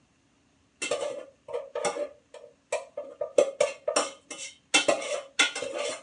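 A metal spoon scraping and knocking in a metal pot of cooked rice, in a run of short, irregular strokes, about two or three a second. The strokes start about a second in.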